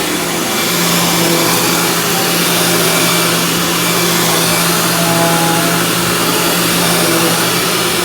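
Dirt Devil Ultra Vision Turbo upright vacuum cleaner running steadily at full speed, a loud even rush of air over a steady motor hum.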